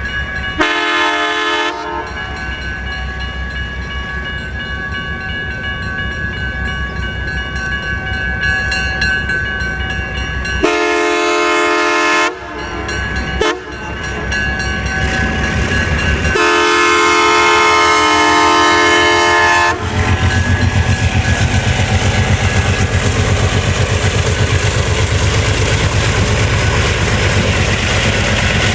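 Diesel locomotive's multi-chime air horn sounding three blasts: two shorter, then a longer one. The train then rolls past close by, loud, with a fast regular clatter of wheels on the rails.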